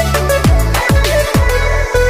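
Electronic background music with a heavy sustained bass line and deep bass notes that slide sharply downward, several times.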